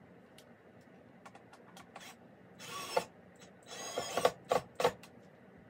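Cordless drill driving a screw into a wooden board in short trigger pulls: a brief run about halfway through, then a longer run and two quick blips near the end, after a few light clicks.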